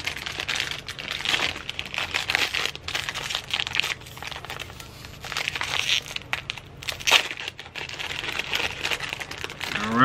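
Plastic wrapper of a Nature's Bakery fig bar crinkling and crackling as it is pulled and torn open by hand.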